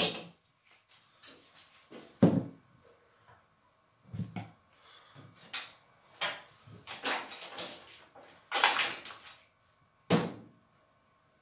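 Hands handling the oven's insulation blanket and sheet-metal casing: irregular rustling and scraping with a few sharp knocks, the loudest about two seconds in, near the end of the first two-thirds, and about ten seconds in.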